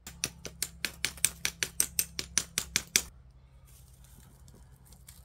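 A flint struck rapidly against a stone to throw sparks into tinder: about twenty sharp clicks in three seconds, then the striking stops.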